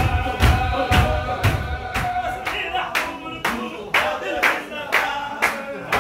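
Men's voices chanting a Qadiri zikr in unison, holding a long note over a steady beat of sharp claps about twice a second. Heavy low thuds join the claps in the first second or so.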